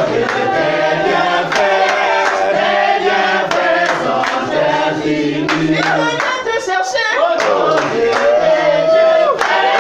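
A group of voices singing a gospel song together, with steady hand clapping keeping the beat at about two claps a second.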